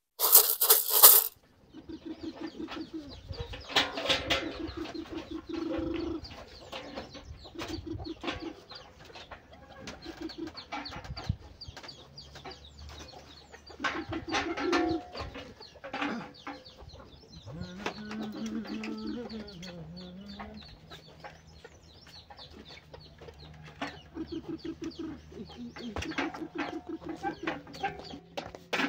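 Domestic chickens clucking on and off, with scattered small knocks. A brief loud noise comes in the first second or so.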